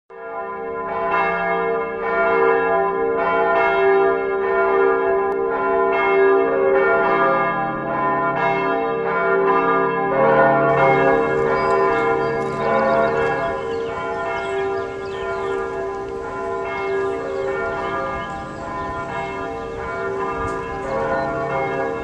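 Bells ringing: a steady run of struck, ringing tones about three every two seconds, turning to a denser, brighter wash of overlapping ringing about halfway through.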